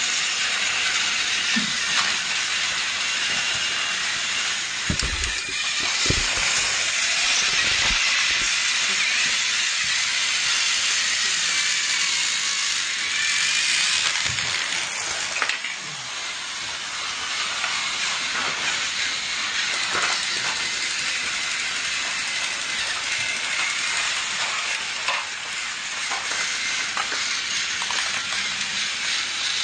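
Motorized toy train running around a plastic track: a steady high whirring rattle, with a few low knocks about five to eight seconds in.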